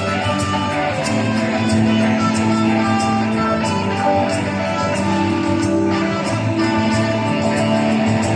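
Live band playing at a sound check: guitar over held low notes, with steady percussion ticking throughout.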